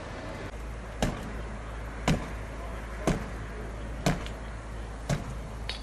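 Five heavy knocks or blows, evenly spaced about one a second, over a steady low background.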